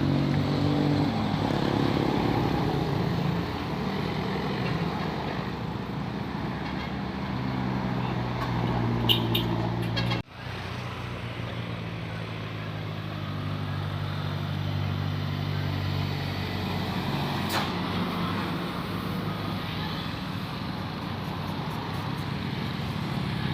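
Heavy bus engine running under load with a steady low hum, its pitch shifting slowly. The sound cuts out sharply for an instant about ten seconds in, and a few short clicks come just before that.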